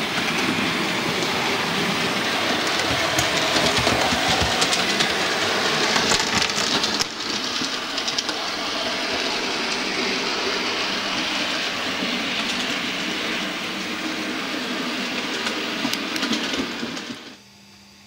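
Model railway train, a streamlined A4 Pacific locomotive model with coaches, running over the layout's track: a continuous rattling clatter of wheels over rail joints and points. The sound shifts abruptly about seven seconds in and cuts off shortly before the end, leaving a low electrical hum.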